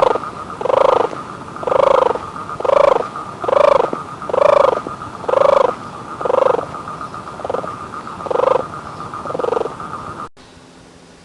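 An animal calling over and over, about once a second, each call short and rich-toned, over a steady high background tone. The sound cuts off abruptly near the end.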